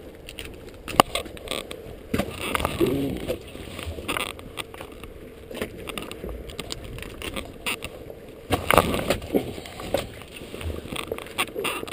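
Irregular knocks, clicks and water noise of a gillnet being worked over the side of a small boat as sockeye salmon are picked from it, muffled by a waterproof camera case, with a louder burst of noise about nine seconds in.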